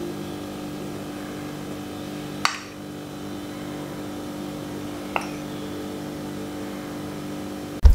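A metal spoon clinks twice against a ceramic cup while scooping icing glaze, once about two and a half seconds in and more lightly about five seconds in, over a steady low hum.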